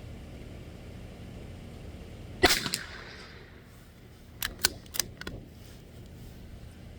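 .22 LR rifle firing a single shot about two and a half seconds in, followed by four quick sharp metallic clicks about two seconds later as the action is worked for the next round.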